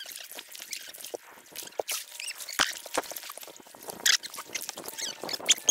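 Kayak paddle strokes: water splashing and dripping off the paddle blades in short, irregular splashes, with one sharper knock about two and a half seconds in.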